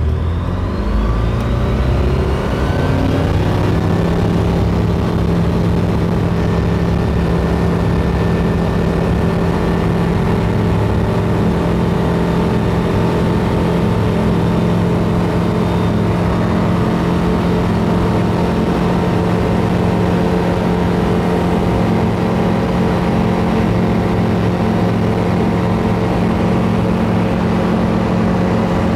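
Light aircraft's piston engine and propeller opened up to full power for a short takeoff: the note rises over the first few seconds, then holds steady.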